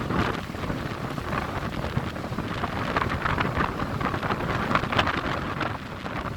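Strong gusty wind blowing across the microphone, a rough, uneven rush with low rumbling buffets.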